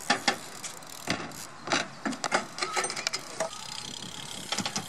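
BMX bike rolling on skatepark asphalt, with irregular sharp clicks and knocks from the bike.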